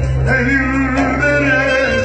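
Man singing a Turkish song live into a microphone, his voice bending and sliding between notes, over a bağlama (long-necked lute) and a strong sustained bass in the backing.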